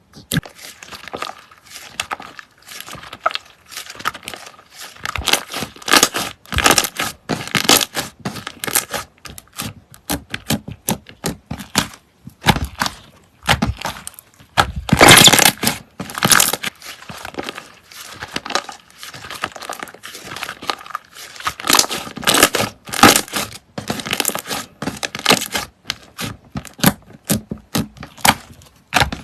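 Slime being worked by hand, giving many irregular crackling pops and clicks, with a denser, louder run about halfway through.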